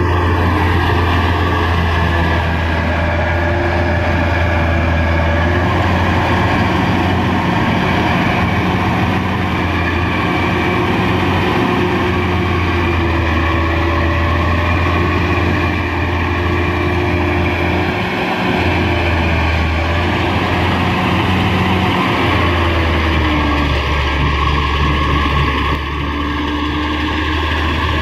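Kubota DC-93 combine harvester's diesel engine running steadily as the crawler machine works through deep mud, a continuous low drone with higher tones that waver slowly.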